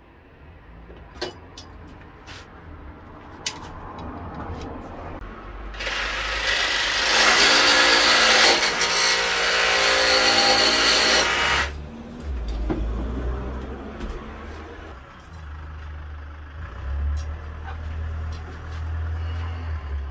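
Jigsaw cutting through an aluminium LED channel profile: one loud cut lasting about six seconds in the middle, after a few sharp clicks of handling. A low rumble follows the cut.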